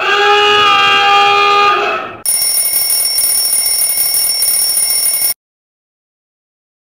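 Two steady electronic alarm-like tones in a row: first a horn-like chord for about two seconds, then a high thin beep over a hiss for about three seconds that cuts off suddenly, followed by silence.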